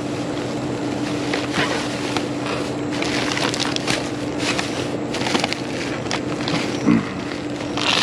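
Plastic trash bags and packaging rustling and crinkling in irregular bursts as gloved hands dig through them, over a steady low hum.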